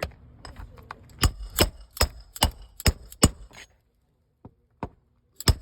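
Hammer blows: about six quick sharp strikes roughly a third of a second apart, with a light ring, then a pause with two light taps, then another quick cluster of strikes near the end.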